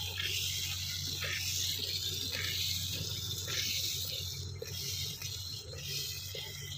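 Hand-milking: streams of milk squirted from the teats into a half-full aluminium pot, hissing into the milk in squirts about once a second.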